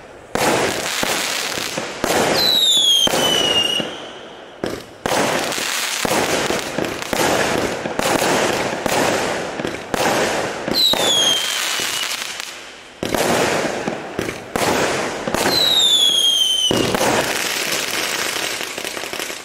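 A 0.6-inch, 100-shot mould cake firework firing shot after shot in rapid succession: repeated sharp launch pops and bursts with crackling. A high whistle glides downward three times among the shots.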